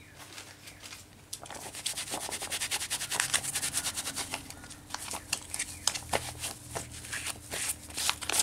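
An inked clear stamp being rubbed clean with a white wipe: quick, closely spaced rubbing strokes that start about a second in.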